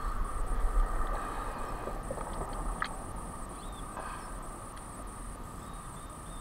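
Outdoor ambience at the water's edge: insects trilling steadily in a high, pulsing drone over a low rumble, with light water movement as a largemouth bass is held in the water, and one sharp click near the middle.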